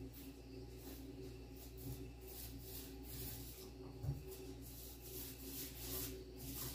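Faint rubbing and rustling over a steady low hum, with a soft thump about four seconds in.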